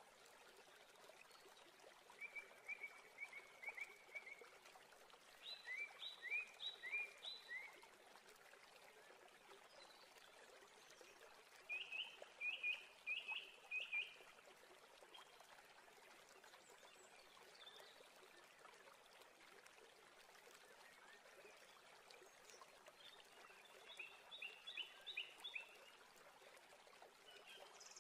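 Quiet chirping: four runs of quick, high chirps, each run about two seconds long, over a faint steady hiss.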